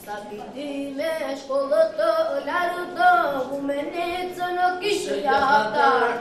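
A children's group of young boys singing together without instruments, in long held notes that slide between pitches.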